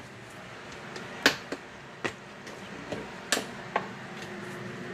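A series of irregular sharp knocks and clicks, about six in all, the loudest about a second in, followed near the end by a faint steady hum.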